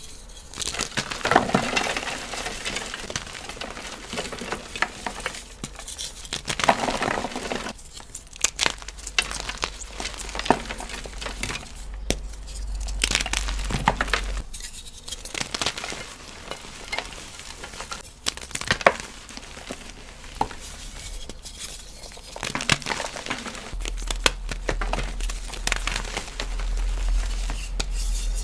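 Dyed cubes of BSN gym chalk being crushed, crunching and crumbling in an uneven run of crisp crunches with sharp cracks.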